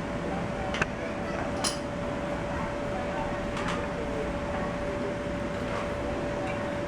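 Carousel drive turning over slowly under power, with a steady whine. A few light metallic clinks come in the first few seconds, as the newly tensioned roller chain and sprockets take up.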